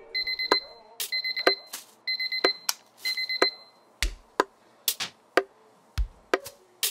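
Electronic alarm beeping in quick groups of four beeps, four times about a second apart, with ticks between them. From about four seconds in, sharp clicks and deep thumps take over in a beat.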